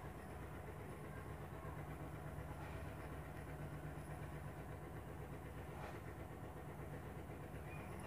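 Steady low mechanical hum of a running motor, with two faint clicks, one about a third of the way in and one near three quarters.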